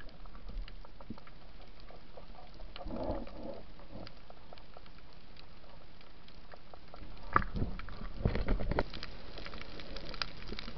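Underwater sound picked up by a diving camera: a steady faint hiss dotted with many small sharp clicks and crackles, and a few louder knocks and rustles from about seven to nine seconds in as the speared fish and spear are handled.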